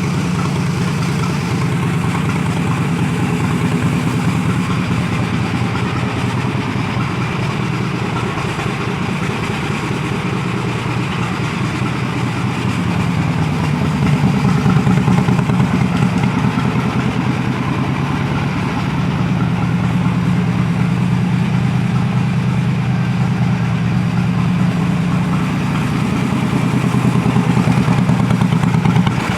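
Small engine of a hot-rodded lawn mower running steadily, a little louder about halfway through and again near the end.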